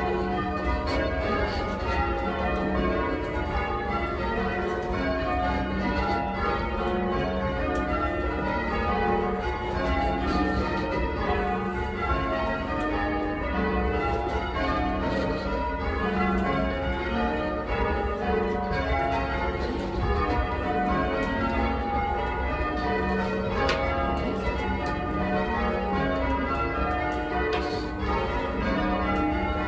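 Change ringing on a ring of eight church bells tuned to F#, with a 14 cwt tenor, mostly cast by Taylor's. The bells strike one after another in a steady, unbroken stream of rows.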